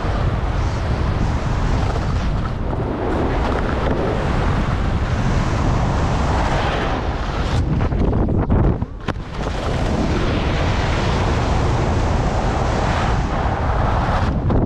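Loud wind rush on the microphone mixed with skis scraping and hissing over packed snow at speed. About nine seconds in the noise drops away for under a second while the skis are in the air off a jump, then comes back on landing.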